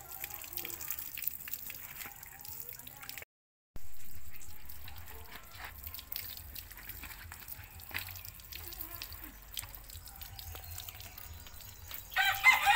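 Water from a garden hose running over a wet hairless dog and splashing and dripping onto concrete, in scattered small splashes. Near the end a rooster starts crowing loudly.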